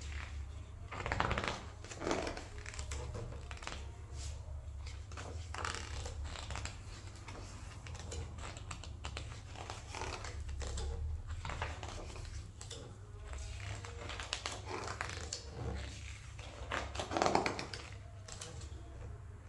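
Pages of a large hardback photo book being turned one after another, each turn a brief papery rustle every few seconds, the loudest one near the end. A steady low hum runs underneath.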